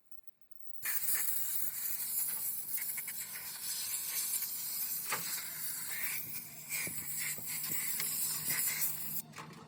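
Loud steady hiss with scattered ticks and clicks, starting about a second in after a brief silence and dropping away near the end.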